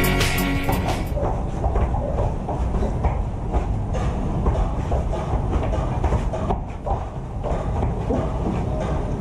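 Music fades out about a second in. Then come irregular thuds and scuffles of two grapplers moving on foam mats, over a steady low rumble.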